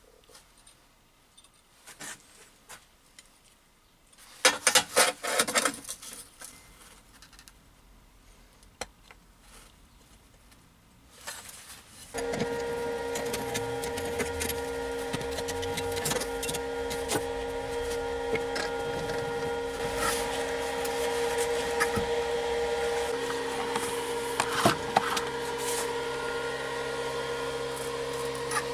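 An angle grinder's motor starts about twelve seconds in and runs steadily with a constant whine. Before that, a short rasping rattle and a few light clicks.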